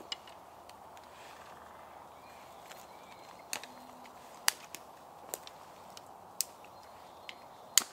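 Dry dead sticks and twigs snapping and cracking as kindling is gathered by hand: about eight sharp, short snaps at irregular intervals, the loudest near the end, over a faint steady woodland background.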